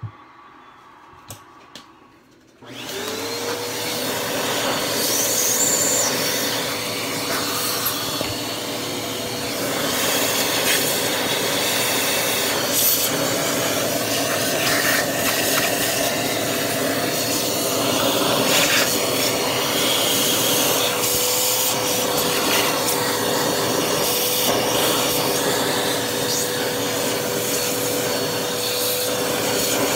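Household vacuum cleaner switched on about three seconds in. Its motor whine rises quickly and holds steady at one pitch, with scattered knocks and rubbing as the nozzle works over the sewing machine's parts to clear out dust and lint.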